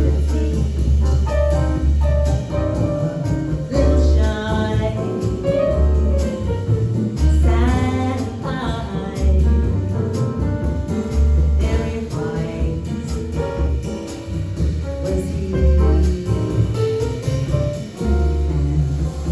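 Live jazz quintet playing an instrumental passage with saxophone, piano, upright bass and drums; a melodic line bends and glides over steady low bass notes.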